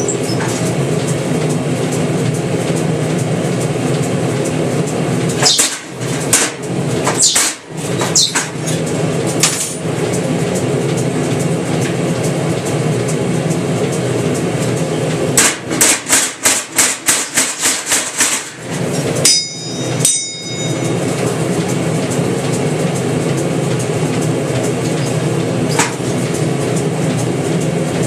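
Mechanical power hammer forging hot steel over a steady drone of shop machinery. A few scattered blows come about six to nine seconds in. Past the middle comes a quick run of about a dozen blows, roughly four a second, followed by a ringing metallic clank.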